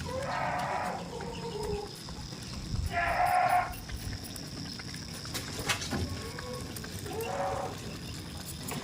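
Goats bleating: three separate calls, near the start, about three seconds in (the loudest) and again near the end.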